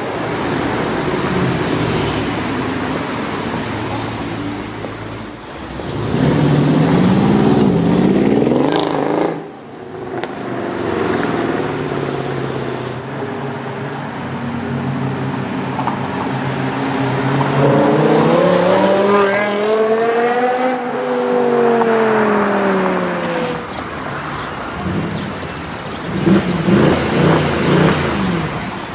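Performance car engines accelerating past, revving hard. One engine note climbs and is cut off suddenly, another climbs and then drops away, and a quick run of sharp cracks comes near the end.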